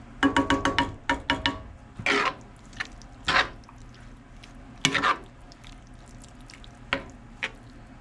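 A utensil stirring shredded cheese into the quiche's egg and sausage mixture: a quick run of ringing clinks against the dish in the first second and a half, then several separate scraping strokes.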